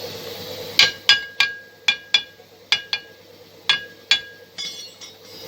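About ten sharp metal-on-metal hammer blows, irregularly spaced, each with a brief high ring. The first few blows are the loudest.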